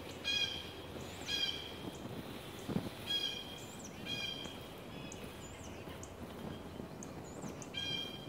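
Turkey yelps: five short, clear notes, in two pairs about a second apart and one more near the end, with faint high songbird chirps and a low thump just under three seconds in.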